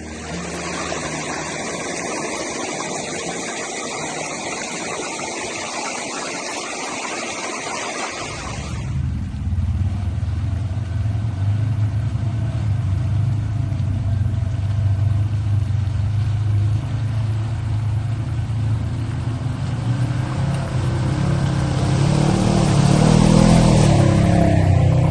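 For the first eight seconds or so, a steady hissing rush with no engine note under it. Then a side-by-side UTV engine comes in, running steadily as it drives. Its note climbs briefly as it accelerates about 22 seconds in.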